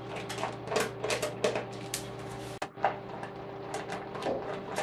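Small screwdriver turning out tiny screws in a nettop's plastic case and motherboard: an irregular run of small clicks and scrapes.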